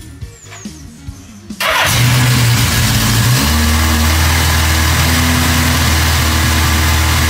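Suzuki Katana GSX 1100's air-cooled inline-four engine firing up on its first start after a full rebuild. It catches about a second and a half in, runs briefly at a higher speed, then drops to a steady idle about two seconds later.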